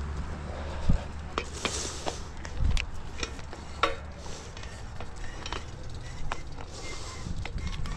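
Bicycle being ridden with its chain set with no slack, giving scattered irregular clicks and rasping from the drivetrain. A low wind rumble on the microphone is there near the start.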